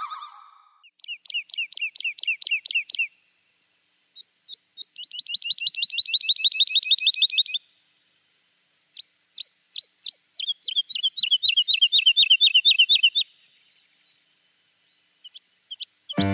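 A songbird singing in three trills of rapid, falling chirps, each a couple of seconds long, with short pauses between them.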